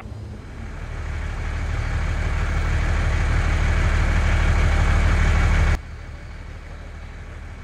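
Heavy vehicle's engine rumbling as it draws near, growing steadily louder, then cutting off abruptly about three-quarters of the way through; a fainter engine rumble carries on after the cut.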